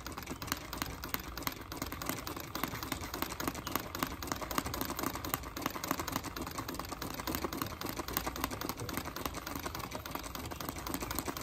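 Treadle sewing machine stitching steadily, a fast, even run of needle clicks as it punches through water-soluble paper stabilizer held in a hoop. Sewing on the paper is a lot noisier than sewing on fabric.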